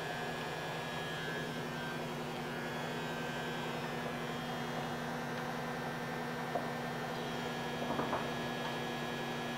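Steady electric hum of a large TOS SU-100 engine lathe's drive running, with a brief light knock about eight seconds in.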